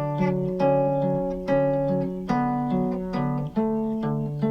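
Guitar fingerpicked slowly, about two notes a second, each ringing on, with a low bass note held under a changing melody line.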